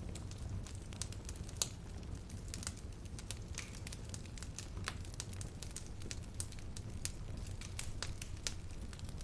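Wood fire in a fireplace crackling: frequent irregular sharp pops and snaps over a steady low rumble of the flames.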